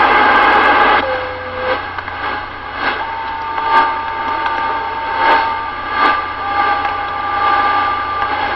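CB radio on channel 14: a loud rush of noise cuts off suddenly about a second in as a transmission drops. Then comes a steady receiver hiss with thin, steady whistling tones from unmodulated carriers on the channel, which come and go, over soft pulses about every three-quarters of a second.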